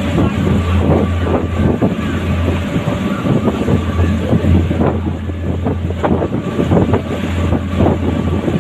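A boat's engine droning steadily while under way, with the wake rushing and splashing alongside and wind buffeting the microphone in irregular gusts.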